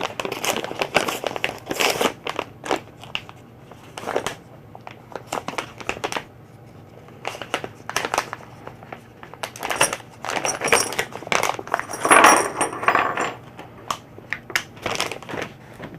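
Packaging crinkling and rustling as a small shotgun-mount parts kit is unpacked. Irregular crackles and clicks come in clusters, busiest at the start and again a little past the middle.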